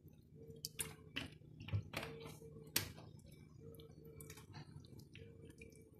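Long wooden spoon stirring a thick palm-oil sauce in a large metal pot: faint wet squelching and scraping with irregular knocks of the spoon against the pot, the sharpest a little before halfway.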